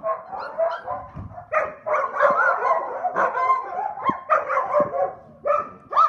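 Samoyed puppies yipping and whining, many short high calls overlapping in quick bouts.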